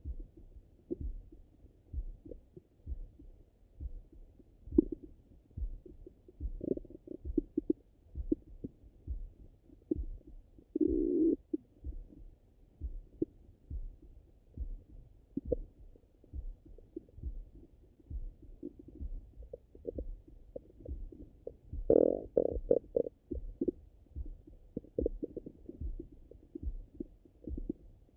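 Bowel sounds of a digesting stomach after a meal, heard through a Littmann stethoscope on the belly: irregular gurgles and rumbles, the longest about eleven seconds in and a cluster of them near twenty-two seconds, over a regular low pulse thump about once a second.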